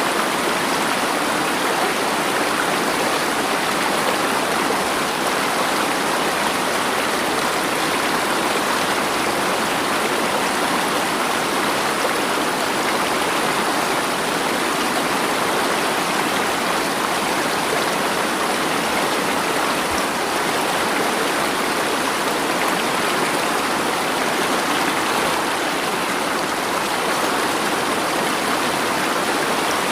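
Flowing stream water, a steady, even rush with no breaks or thunder.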